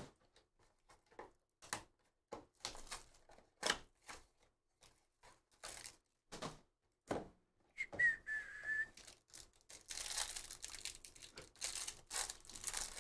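Hands shuffling sealed trading-card boxes and packs, a string of short light taps and rustles. About eight seconds in comes one brief high whistle-like note, then a plastic trading-card pack wrapper is torn open and crinkled.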